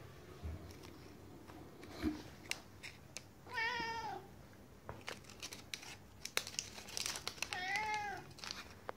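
Siberian cat giving two short begging meows for a treat, one about three and a half seconds in and an arching one near the end, with scattered small clicks between them.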